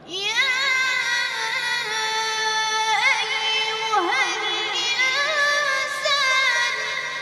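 A child's high voice reciting the Quran in the ornate Egyptian mujawwad style: one long melismatic phrase that starts suddenly with a rising glide, turns through wavering ornaments, and fades near the end.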